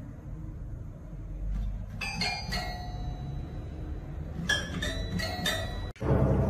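Toy piano notes plinked by a cat's paw, bell-like and briefly ringing: about three notes two seconds in and about four more from four and a half seconds in. Near the end it cuts to louder background music.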